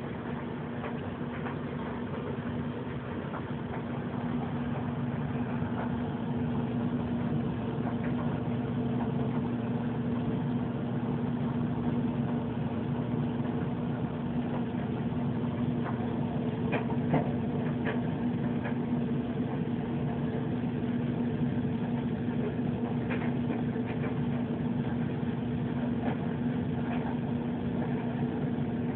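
Steady hum of a running motor or electrical appliance, constant in pitch, with a few faint clicks about halfway through.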